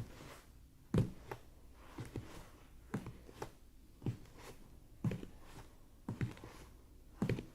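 Footsteps at a slow, even walking pace, about one step a second, each a dull thud followed by a lighter tap.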